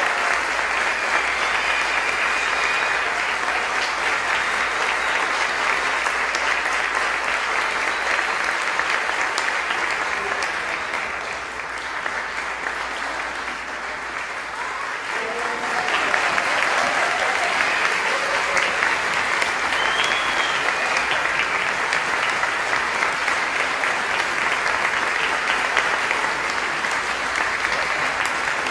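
Audience applauding steadily, easing slightly about halfway through and then swelling again.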